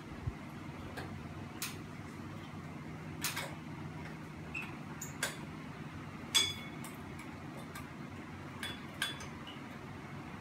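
Irregular clicks and light taps from hands working on a Hunter Pacific 'Aurora' ceiling fan's hub and light housing. About six seconds in comes one louder, sharp clink that rings briefly.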